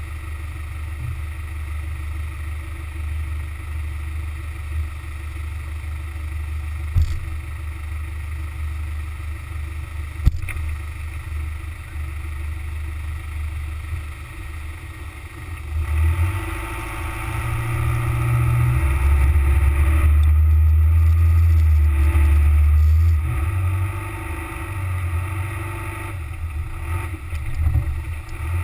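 Car driving on beach sand, heard from a camera mounted low on the body beside the front wheel: a steady low rumble of wind and tyre noise. Two sharp knocks come in the first half, and the rumble grows clearly louder a little past halfway before easing again near the end.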